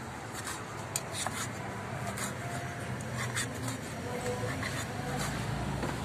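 Cleaver slicing grilled pork on a round wooden chopping block: scraping cuts through the meat, with a few sharp knocks of the blade on the wood.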